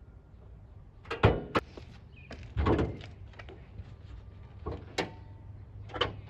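Clicks and thunks from a 2003 Honda CR-V's door and hood: two sharp clicks about a second in, a heavier thunk of the driver's door shutting about two and a half seconds in, then lighter clicks of the hood latch as the hood is released and lifted near the end.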